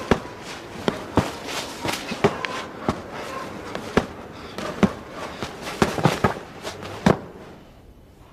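A series of sharp, irregular knocks or impacts, one or two a second, that stop near the end.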